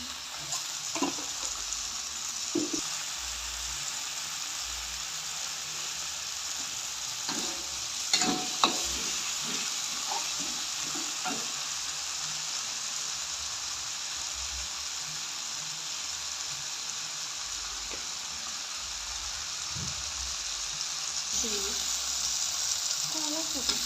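Food frying in hot oil in a pan, a steady sizzle, with a few short knocks of a utensil against the pan, the loudest about eight seconds in.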